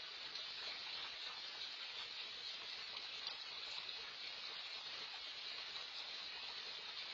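Steady, even hiss of water splashing from the bubbler jets of a backyard fountain pond, heard through a security camera's microphone.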